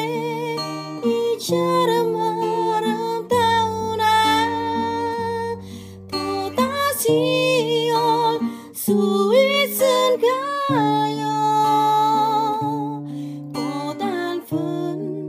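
Slow ballad on a fingerpicked steel-string acoustic guitar, with a sung melody of long held notes and vibrato over it.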